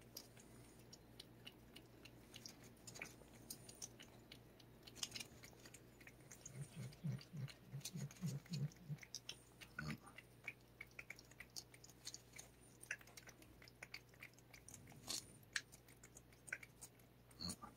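A cat licking lickable paste treat (CIAO Churu) from a squeeze tube: faint, quick wet tongue clicks and smacks, several a second and irregular.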